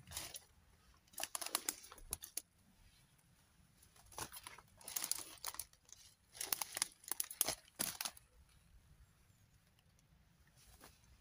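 Footsteps pushing through dry undergrowth: dead leaves, twigs and brambles crunching and crackling in four bursts with quiet gaps between.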